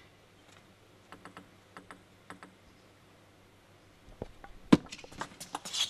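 Table tennis ball ticking lightly a few times as it is bounced before the serve, then a short rally of sharp clicks of the celluloid ball off bats and table, the loudest a little under a second into the rally. The point wins the game, and crowd noise begins to swell right at the end.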